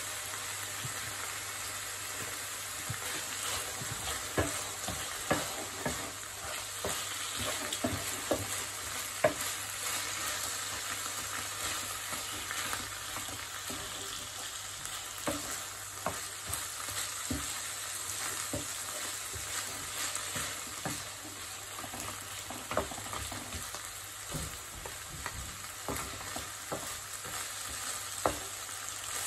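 Minced meat and peas sizzling in a frying pan, stirred with a wooden spoon that scrapes and now and then knocks against the pan, over a steady frying hiss.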